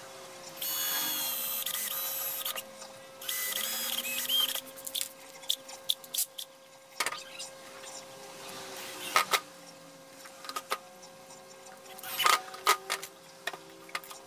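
Cordless drill run in two short bursts with a high motor whine, the first about two seconds long, followed by scattered clicks and knocks of small metal hardware being handled and fitted.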